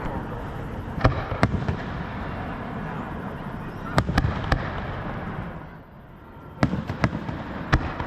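Fireworks show: aerial shells bursting with sharp bangs in clusters of two or three, about eight in all, over a steady crackling background that thins out about six seconds in.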